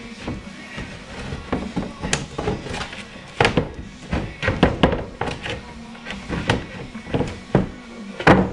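Plywood floor panel being lowered and knocked into place in a boat's floor: a string of irregular wooden knocks and thumps, the loudest a little before the end.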